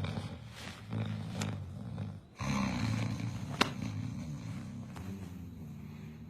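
Loud, low, rattling snoring: a few long drawn snores, the last and longest fading out near the end, with one short sharp click about halfway through.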